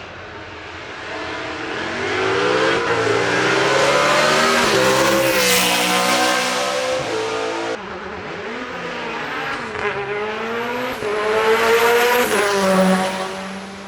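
Hillclimb race car launching and accelerating hard, its engine pitch climbing and dropping back through several gear changes. About eight seconds in, a second car does the same and its sound fades near the end.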